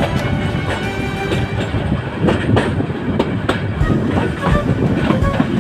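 Passenger train running on the rails: a steady rumble with the wheels clacking over rail joints.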